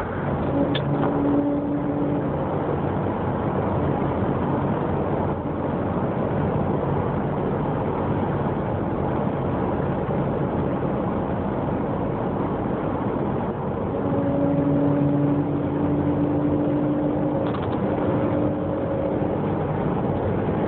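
2000 Jeep Grand Cherokee running, with a steady droning tone that comes in briefly about a second in and again for most of the last third over the vehicle's noise. This drone is the odd noise the owner is showing.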